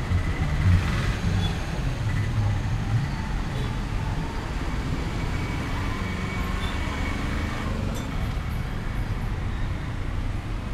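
Steady city street traffic: the engines of auto-rickshaws, minibuses and cars running and passing on the road.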